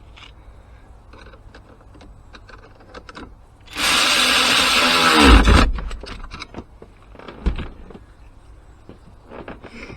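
A power drill-driver runs for about two seconds, then winds down with a falling pitch. Light clicks and knocks of handling come before and after it, and there is a single knock later on.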